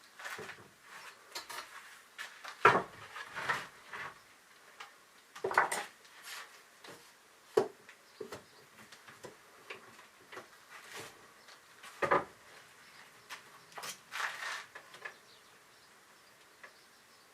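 Irregular knocks, clinks and scrapes of hard objects being handled, with about five louder knocks spread through and quieter clatter between.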